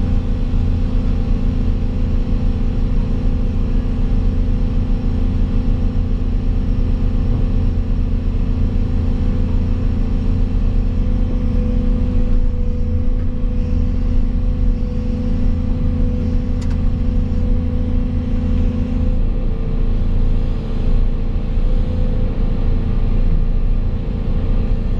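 Volvo EC220 excavator's diesel engine running steadily, heard from inside the operator's cab.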